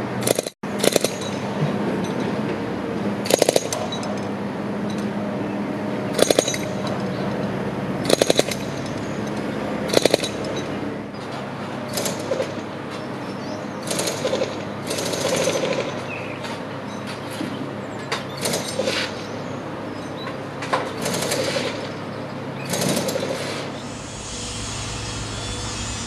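Pneumatic jackhammer breaking concrete away from a cluster of rebar: continuous rapid hammering, with louder bursts every couple of seconds. Near the end it gives way to a steadier low rumble.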